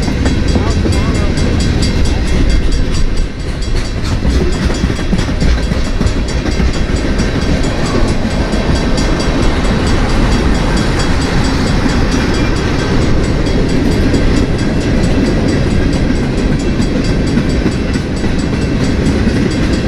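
Freight train rolling past close by: a steady heavy rumble of cars on steel rails, with clicks of wheels over rail joints repeating all through.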